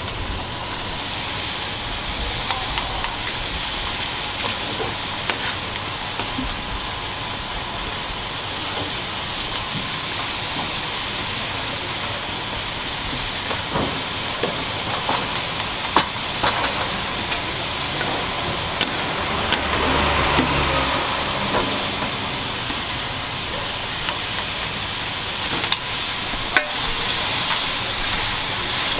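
Steady hiss of food cooking on a stove, with scattered clicks and knocks of utensils and a brief low rumble about two-thirds of the way through.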